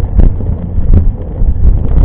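Heavy wind buffeting on the microphone of a camera on a moving mountain bike, with a few sharp knocks and rattles from the bike.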